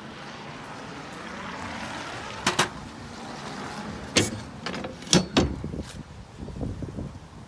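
Sharp clunks and rattles of a small camper trailer's fittings being handled, in the manner of a door or hatch being opened and shut. A double knock comes about two and a half seconds in, then several louder knocks between about four and five and a half seconds, then lighter clattering.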